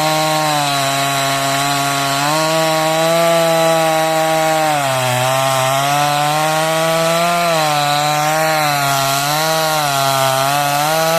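Kalibr 45cc two-stroke chainsaw with a Champion Pro LP chain cutting through acacia wood at high revs. The engine pitch drops several times as the chain bites under load, then picks back up.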